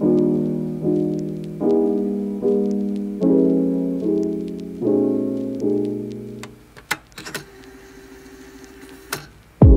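Background piano music: repeated chords struck about every 0.8 s, each ringing and dying away. The piano stops about two-thirds of the way through, leaving a couple of clicks in a quiet lull, and a heavy low thump comes in right at the end.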